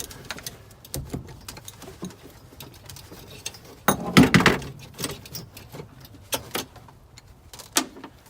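Scattered metallic clicks and knocks of hand tools working on car hardware, with a louder cluster of clanks about four seconds in.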